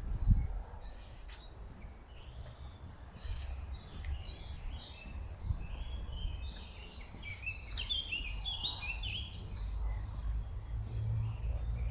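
Small songbirds chirping in quick runs of short high notes, busiest and loudest about two-thirds of the way in, over a steady low rumble with a brief thump near the start.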